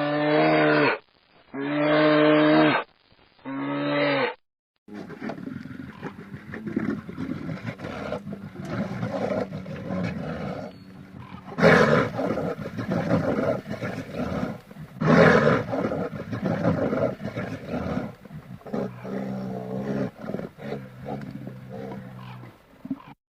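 Wild animal calls from two recordings: first three short calls of about a second each, held on a steady pitch, then a longer stretch of deep, rough roaring calls with two louder ones around the middle.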